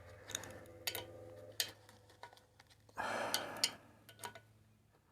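Faint metallic clicks and taps from hand work on the backhoe, a few in the first two seconds and two more past four seconds, with a breath let out about three seconds in.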